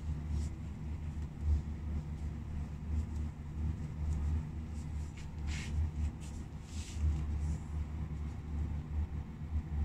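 A steady low rumble throughout, with a few soft crackles of french fries being mashed under socked feet on a tile floor, the clearest a little past halfway.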